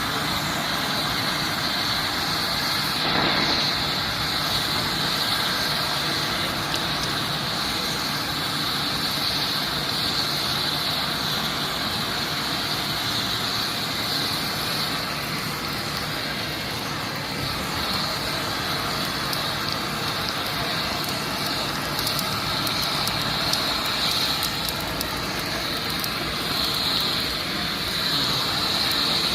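Gas preheating torch on a rail thermit weld, burning with a steady hissing roar that holds at an even level throughout.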